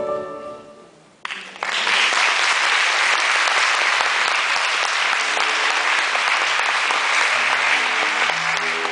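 Piano music fades out, then an audience starts applauding about a second in and keeps clapping steadily. Faint music starts up again under the clapping near the end.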